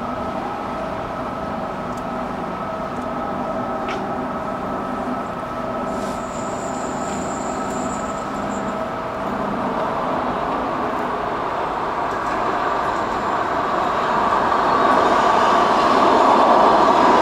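Rotterdam metro train approaching the platform: a steady rail-and-motor hum that grows louder over the last several seconds, with a brief high-pitched whine about six seconds in.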